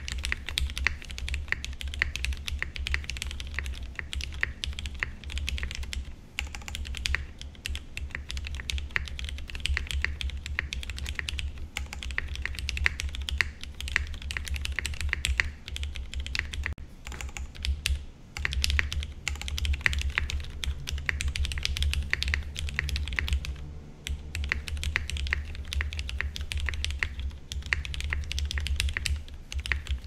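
Typing on a Lyn Whale TKL mechanical keyboard fitted with lubed, filmed Cherry MX Black linear switches, a POM half plate and ABS keycaps. A fast, continuous clatter of keystrokes breaks off in a few brief pauses.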